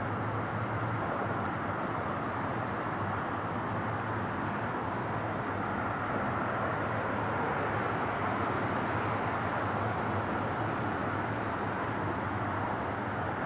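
Jet engines of an Airbus airliner on final approach, heard from the ground as a steady rushing noise that grows slightly louder about halfway through.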